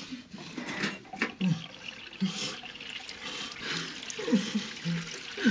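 Tap water running into a sink and basin as a head of hair is washed under it, with splashing. Several short, falling cries from a person are louder than the water.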